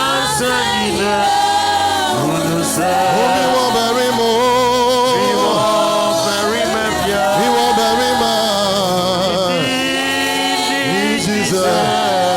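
Voices singing a gospel worship song together, with long held notes that waver in vibrato.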